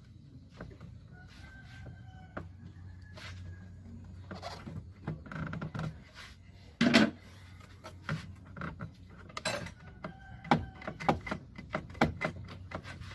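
Scattered clicks and knocks of hand tools being handled during a spark plug change, with one louder knock about seven seconds in, over a low steady hum.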